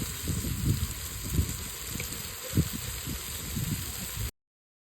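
Chicken cooking in a pot, bubbling and sizzling with a steady hiss and irregular low pops. It cuts off suddenly about four seconds in.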